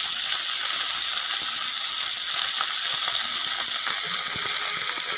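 Boneless chicken pieces pan-frying in hot cooking oil as they brown: a steady sizzling hiss with scattered small crackles.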